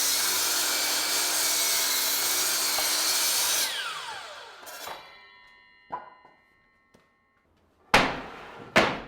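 Power saw crosscutting a hard maple board, then switching off, its motor whining down in a falling pitch a little over halfway through. Then several hollow wooden knocks as boards are handled and set down, the last two near the end the loudest.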